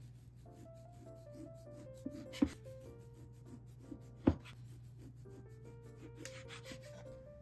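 Soft rubbing and scraping from hands-on baking work, with two sharp knocks, about two and a half and four and a quarter seconds in, the second the loudest. Gentle background music with a stepping melody plays throughout.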